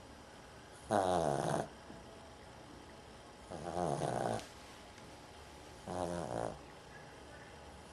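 A sleeping dog snoring: three buzzy snores, each under a second long, about two and a half seconds apart. The snoring comes from her trouble breathing through her nose.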